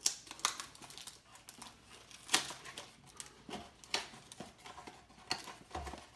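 Handling noise from opening a small cardboard blind box and its packaging: scattered clicks and light taps, the sharpest a little past two seconds in, with a soft thud near the end.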